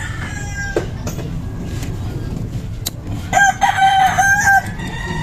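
A rooster crowing: one loud crow, a little over a second long, about three seconds in, with fainter crowing near the start and again near the end. Two sharp knocks sound in the first three seconds.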